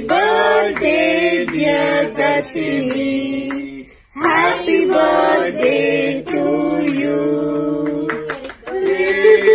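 A group of voices singing a song together, with a brief break about four seconds in and some hand claps near the end.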